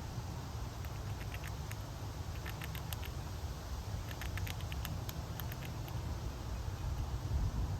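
A squirrel gnawing and chewing, heard as quick runs of small sharp clicks from about a second in until near the end, over a steady low rumble.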